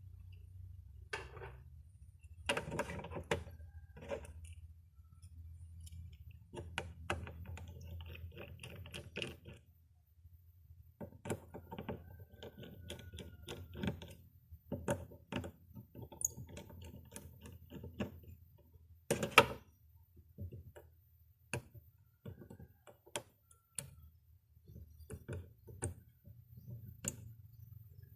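Irregular clicks and taps of small hard objects being handled, over a low steady hum, with one sharper knock about two-thirds of the way through.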